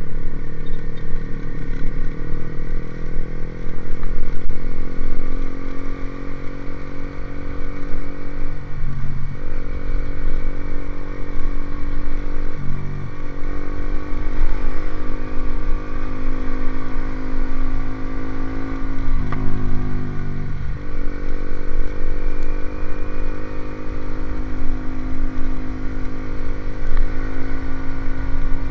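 Motorcycle with an aftermarket racing exhaust running steadily, its engine note dipping briefly and recovering about four times.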